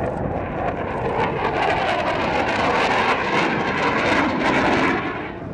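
Jet roar of an F-4C Phantom II's twin J79 turbojets as it flies past. The roar swells to its loudest about four seconds in, then eases off near the end.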